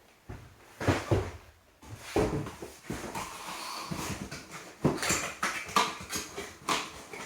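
Cardboard LEGO set boxes being handled and shifted: irregular rustles, scrapes and knocks of cardboard, with a few brief squeaks.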